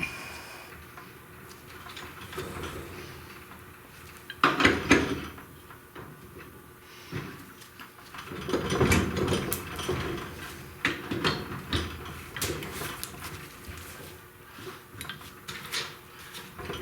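Hand tools and small metal parts clinking, scraping and clattering in irregular bursts while a cotter pin is worked into a wheel hub's spindle, with louder clatter about four and a half seconds in and again around nine seconds.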